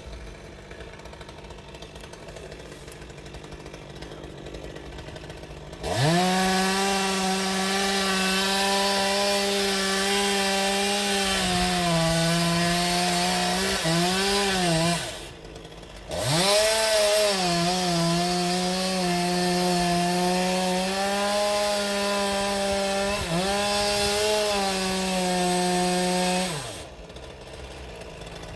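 Two-stroke chainsaw opened up to full throttle about six seconds in, running at a high, steady pitch that dips slightly at times. It is let off briefly about halfway, then taken back to full throttle for about ten seconds before dropping back near the end.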